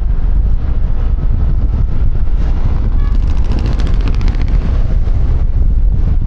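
Wind buffeting on a helmet-mounted external microphone over the running engine and traffic of a QJMotor Fortress 160 under way on the highway. A rapid buzzing pulse rises over it from about three seconds in for a second or so.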